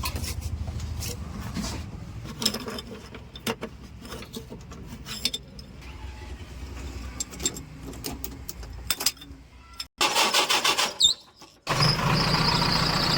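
Diesel engine of heavy farm and earthmoving machinery running, with scattered clanks and knocks. The sound breaks off abruptly twice, and near the end a louder engine runs steadily.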